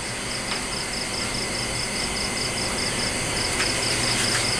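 A cricket chirping in a rapid, even pulse, about four to five chirps a second, over a steady hiss, with a few faint ticks.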